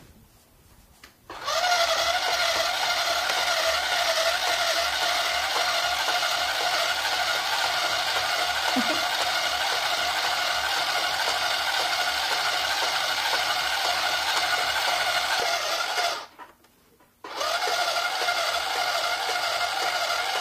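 Multikids My Style toy electric sewing machine stitching, a steady motor whine that starts about a second and a half in. It stops for about a second near the end, then runs again for the reverse backstitch that ties off the seam.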